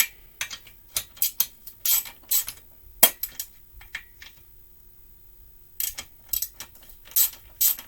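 Light metallic clinks and taps of hand tools and small metal parts being handled on a small lawn-mower engine, in two bunches with a quiet stretch between, and one sharper knock about three seconds in.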